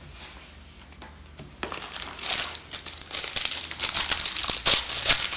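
Trading-card pack wrapper crinkling and tearing as a pack is opened, starting about a second and a half in and running as dense crackling.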